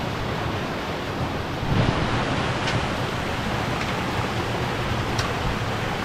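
Steady rush of a rocky stream running over and between boulders, with a few faint high clicks.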